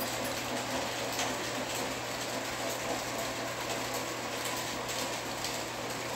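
Model passenger train running along the track, a steady mechanical whirr of motor and wheels on rail with a constant low hum and faint clicks.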